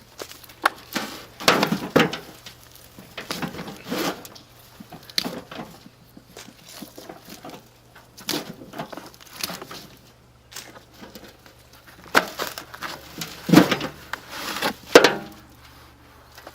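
A bucket of potato soil being dumped and worked over by hand: irregular knocks, scrapes and crunching of soil and dry plant tops, with two louder thumps near the end.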